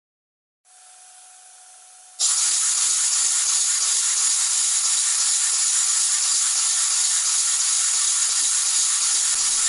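Stuart Victoria model single-cylinder horizontal steam engine being run on compressed air from a blow gun held at its inlet: a faint hiss with a thin tone starts under a second in, then the air comes on fully at about two seconds and a loud, steady hiss of air runs as the engine turns over.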